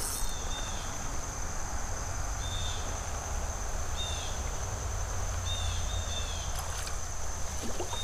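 Steady rush of creek water with a low rumble underneath, a constant high insect drone, and a few short, high, falling chirps.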